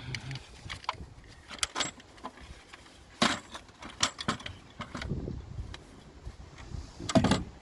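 Sharp metallic clicks and jangling of tools and small parts being handled, a scattering of separate clicks with the loudest about three seconds in and near the end.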